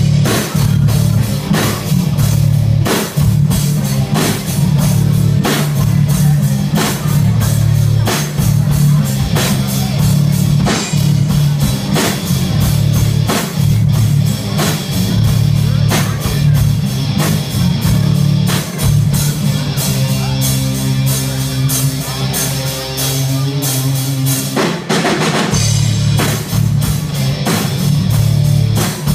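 A rock band playing live: drum kit keeping a steady beat under heavy electric guitars and bass. The band thins out for a few seconds past the middle, then comes back in full near the end.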